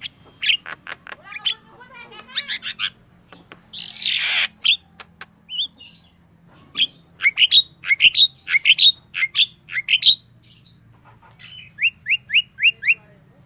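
Yellow-vented bulbul calling vigorously in quick bursts of short chirping notes, with a harsher, noisier note about four seconds in. Near the end comes a run of five quick rising notes.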